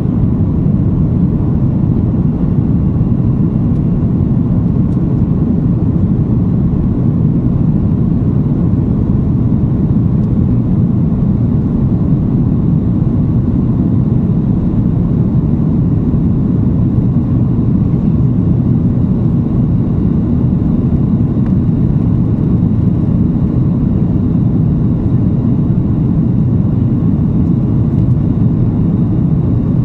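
Steady low cabin rumble of an Airbus A330-243 in its climb after takeoff: the Rolls-Royce Trent 700 engines and the airflow past the fuselage, heard inside the cabin from a seat behind the wing. It stays even throughout, with no changes in pitch or level.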